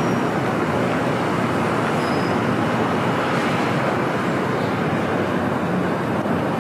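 Steady city street noise: a continuous even rumble and hiss of traffic, with no distinct events standing out.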